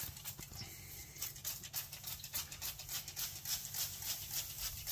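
Hand trigger spray bottle squirting repeatedly, a quick run of short hissing sprays.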